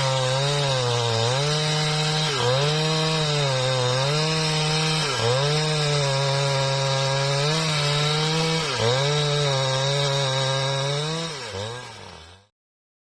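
Husqvarna 395XP two-stroke chainsaw running at full throttle while ripping along a mahogany log, its pitch sagging briefly every second or two as the chain bogs under load. Near the end the sound drops away and cuts off.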